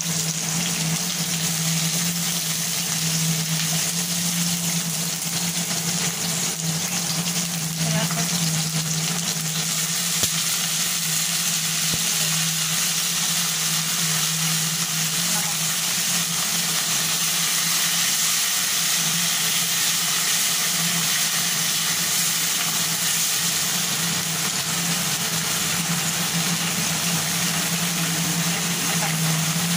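Onion and green capsicum pieces sizzling steadily in hot oil in a wok and being stirred with a spatula, over a steady low hum.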